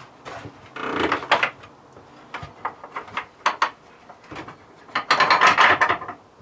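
Wooden plank cabin door being pulled shut and fastened, heard as scattered clicks and knocks, a short dense clatter about a second in and a louder rattle of the latch a little after five seconds.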